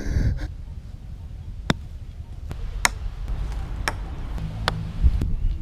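A low, steady rumble, like wind on the microphone, with several sharp, isolated clicks about a second apart.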